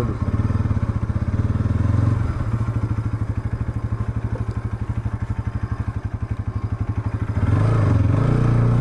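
Bajaj Pulsar's single-cylinder engine running at low revs while the motorcycle rolls slowly, with a steady, even exhaust pulse. It gets louder near the end.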